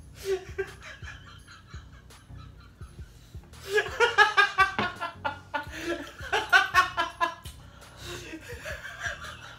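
A man laughing hard in rapid, repeated ha-ha pulses: two long fits in the middle, with quieter chuckles before and after.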